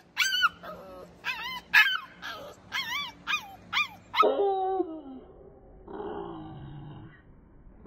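Pit bull-type puppy giving a quick run of high-pitched yips, then about four seconds in a longer, lower howl that falls in pitch.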